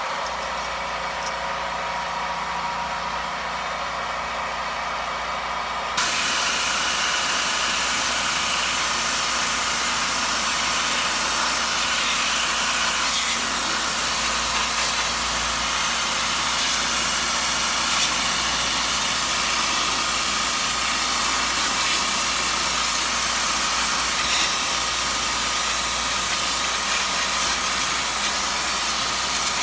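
High-pressure washer rinsing detergent out of a wall air conditioner's blower fan and outlet, a steady hiss of the water jet. For the first six seconds it is quieter, with a faint motor hum; then the spray cuts in suddenly and louder, hissing steadily on. This is the rinse stage, flushing moldy dust out of the gaps of the stopped fan.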